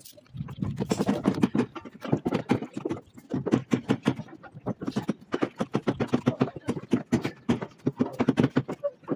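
Flexible plastic electrical conduit being pulled and fed through a steel rebar mesh over wooden formwork, with quick, irregular clacks and knocks as the pipe and hands hit the bars and boards.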